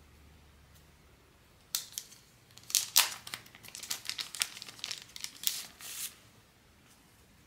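Thin clear plastic sleeve being peeled open and crinkled by hand as a card is pulled out of it: a run of crackling and tearing sounds starting about two seconds in, loudest early on the run, and stopping a little over a second before the end.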